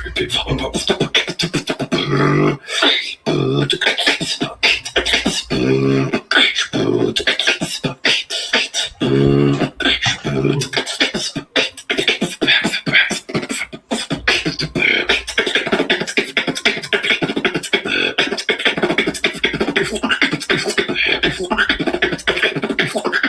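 A human beatboxer performing a rapid routine of vocal drum sounds: kicks, snares and clicks, with a few pitched hummed notes in the first half.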